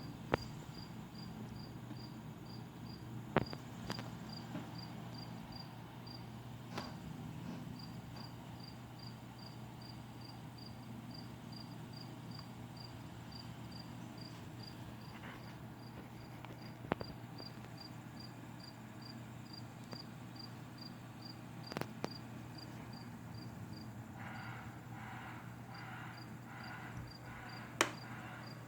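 A cricket chirping steadily, short high chirps at about two and a half a second, pausing briefly twice. Under it a steady low hum, a few sharp clicks, and near the end a run of rhythmic pulses.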